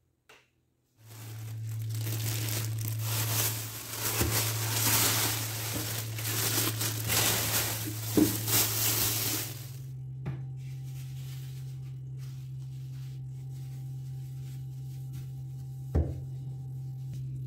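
Plastic produce bags crinkling and rustling as they are pulled out of a refrigerator's shelves and drawers, over a low steady hum. After about ten seconds the rustling stops, leaving the hum, with a single knock near the end.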